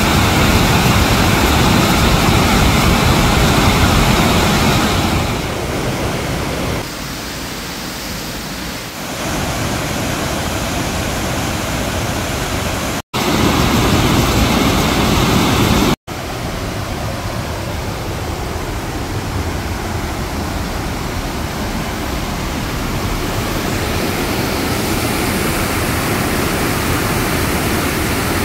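Heavy flow of a waterfall pouring over a rock ledge into a churning pool: a loud, steady rush of water. It cuts out for an instant twice around the middle.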